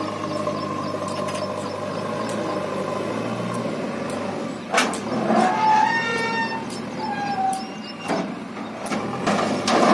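JCB backhoe loader's diesel engine running steadily, then working harder about four seconds in as the loaded bucket is raised over the trolley, with a whine and a few sharp knocks.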